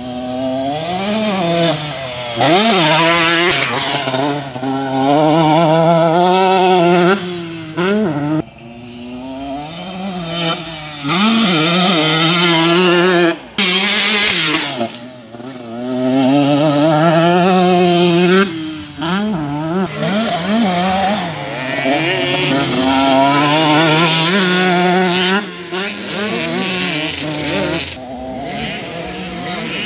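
Motocross dirt bikes revving hard on a dirt track. Their engine notes climb and drop again and again as they change gear and ease off for corners, and at times two or more bikes overlap. The sound is loudest as the bikes come by near the microphone.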